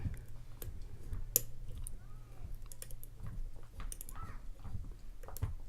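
Lock pick clicking and scraping irregularly against the pins of a custom challenge lock during single-pin picking.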